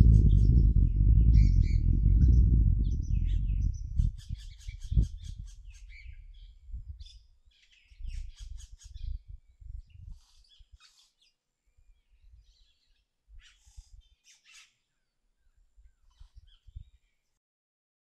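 Small birds chirping and trilling in short, scattered bursts. A loud low rumble lies under them for the first four seconds, then breaks into scattered low thumps, and the sound cuts off about a second before the end.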